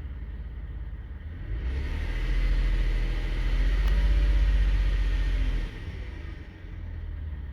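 2009 Toyota Sienna's V6 engine running with a steady rumble. From about two seconds in it runs louder and fuller for roughly four seconds, then drops back to idle.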